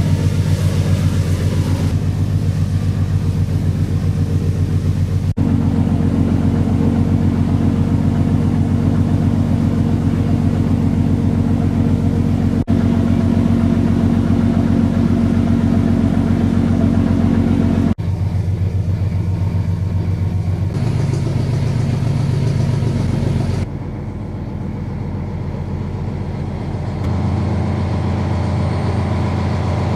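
A fishing trawler's diesel engine runs steadily under way, heard on board. Its low drone shifts abruptly in tone and level several times.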